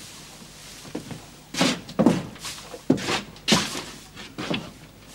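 A run of irregular knocks and thuds, about six in three seconds, starting about a second and a half in.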